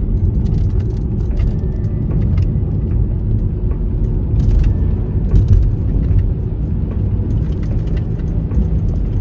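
Steady low road and engine rumble of a moving car, heard inside the cabin of a BMW X3.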